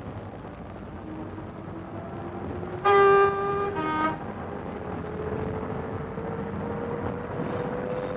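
A 1950s British diesel multiple unit pulling away from rest, its underfloor bus-type diesel engines rising steadily in pitch as the train accelerates. About three seconds in, the horn sounds loudly: a longer blast, then a short, lower note.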